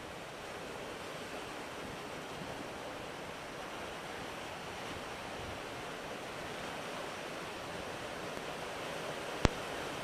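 Sea waves washing and breaking over low rock ledges at the shore, a steady rushing surf. A single sharp click sounds near the end.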